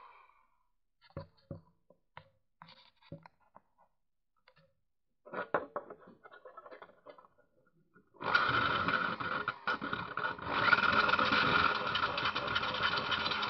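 Scattered clicks and knocks of tool handling, then about eight seconds in an electric drill starts and runs steadily, its abrasive grinding bit scraping the burred cut edge of a tin can to smooth it.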